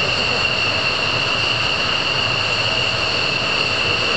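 F-16 jet engines running steadily: a high, even whine over a broad rush of engine noise, with no change in pitch or loudness.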